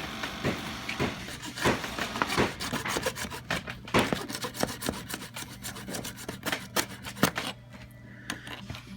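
A hacksaw cutting into the inner pipe inside a furniture fitting, in quick short rasping strokes, with care taken not to cut into the fitting itself. The strokes thin out and get quieter near the end.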